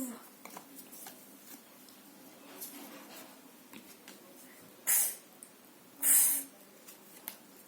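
A woman voicing breathy, hissing consonant sounds as phonics: two short hisses about five and six seconds in, the second with a little voice behind it.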